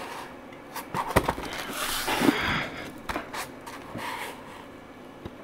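Handling noise: a few sharp clicks and knocks, with a scraping rustle about two seconds in, as objects are moved and handled.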